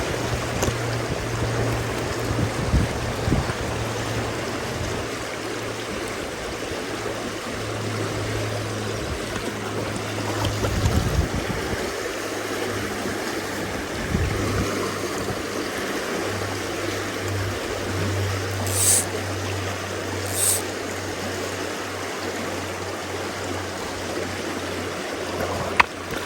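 A small mountain stream running over rocks, a steady wash of water. Two brief sharp high sounds come about a second and a half apart late on.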